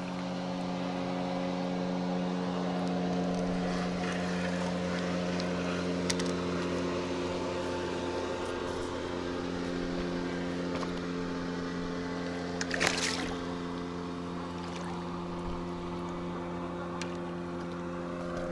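A motorboat's engine running steadily on the river, a constant droning hum. About two-thirds of the way through, a short burst of splashy noise is heard.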